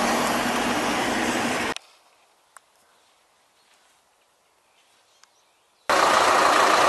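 Armoured wheeled vehicle driving over a dirt track, a steady rumble that cuts off suddenly under two seconds in. Near silence follows, with two faint clicks. About six seconds in, a louder steady engine noise from the vehicle starts abruptly, heard from its open hatch.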